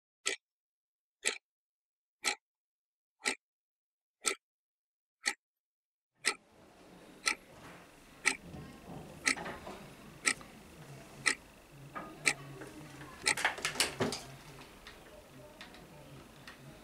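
A clock ticking once a second, about a dozen sharp ticks, at first over dead silence and then over faint office room tone. About thirteen seconds in comes a quick cluster of clicks and knocks as a desk telephone's handset is picked up and its keys are pressed.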